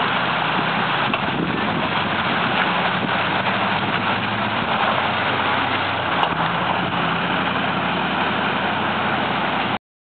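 Land Rover Defender 90's engine running steadily at low revs as the truck crawls slowly past close by; the sound cuts off abruptly near the end.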